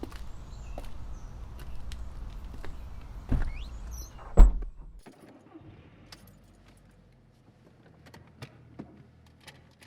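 A vehicle's low rumble with scattered clicks and two heavy thumps, the second the loudest. About five seconds in the rumble cuts off abruptly, leaving only faint clicks and rattles.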